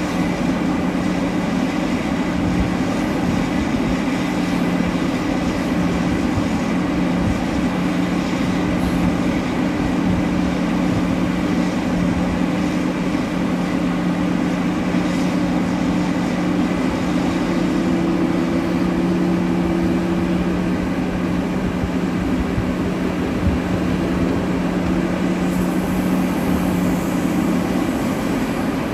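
Heavy mining machinery running: a steady diesel drone with held low hum tones, from a large hydraulic mining excavator and its haul truck at work.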